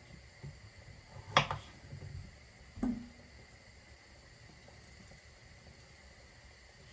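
Kitchen handling noises: two sharp clacks about a second and a half apart, the second with a short low ring, with a few softer knocks between them over a faint steady hiss.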